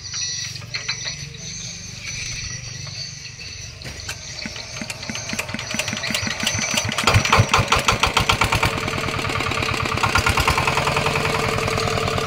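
Mitsubishi D7 single-cylinder diesel engine being hand-cranked, the cranking strokes quickening until it fires about seven seconds in and runs on with an even beat. It starts readily on the crank, and its running note is sound, with no smoke.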